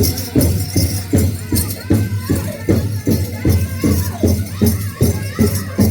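Powwow drum group playing the grand entry song: a big drum struck in a steady beat of about three strokes a second under high, wavering group singing, with a shaking jingle in time with the beats.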